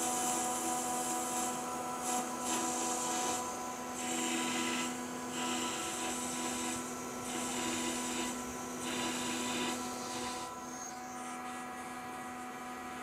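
Metal lathe running with a tool cutting a spinning metal bar: a steady motor and gear hum under a high cutting hiss. The hiss comes and goes about every second and fades out near the end, leaving only the hum.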